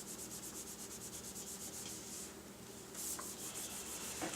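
Quick back-and-forth rubbing on the aluminium lid of a MacBook Pro, about six strokes a second, pausing briefly past the middle before starting again.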